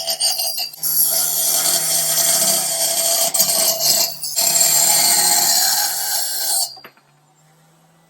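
A 1 1/4 inch high-speed steel mini circular saw blade on a flex-shaft rotary tool, cutting through copper with a loud, steady, high screeching hiss over the motor's hum. The cutting stops about seven seconds in, and the motor hum carries on briefly after.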